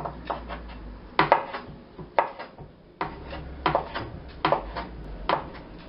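Knife blade knocking on a wooden cutting board while dicing peeled shrimp: a dozen or so irregular, sharp taps.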